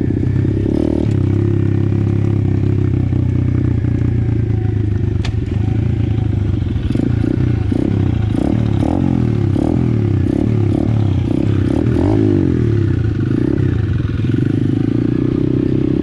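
A 125cc pit bike's single-cylinder engine running under the rider on a gravel track, with gravel crunching and clattering under the tyres. Through the middle, the revs rise and fall repeatedly while a second dirt bike runs close alongside, the two engine notes crossing.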